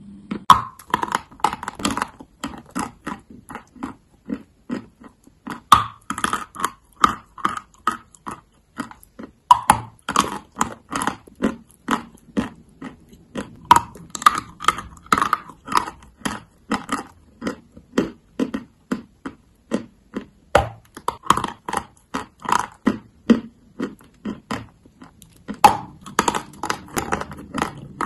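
A person biting into and chewing a block of white chalk close to the microphone. Crisp crunches and cracks come a few times a second, with clusters of louder bites every few seconds.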